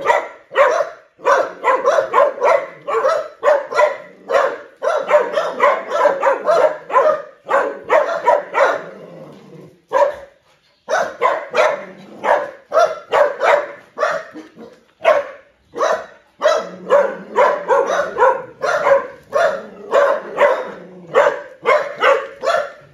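Dogs barking fast and without let-up, several barks a second, with one short break about ten seconds in.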